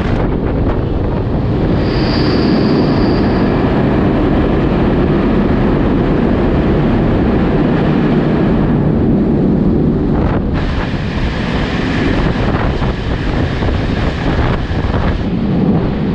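Strong wind buffeting the microphone over a steady low rumble of movement.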